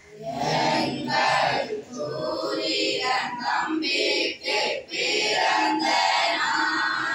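A group of boys singing a birthday song together in unison.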